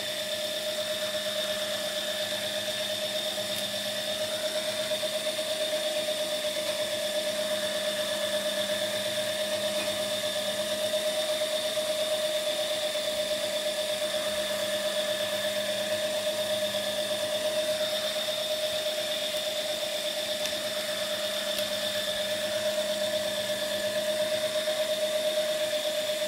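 Small Lego electric motor running steadily, turning the egg turntable through its gears: a constant whine with a steady hum underneath.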